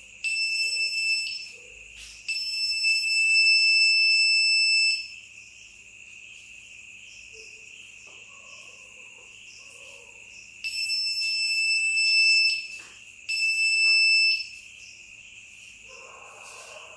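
Homemade PIR motion-sensor alarm going off four times, each a steady high-pitched tone lasting one to three seconds, set off by the sensor detecting movement. Crickets chirr steadily underneath.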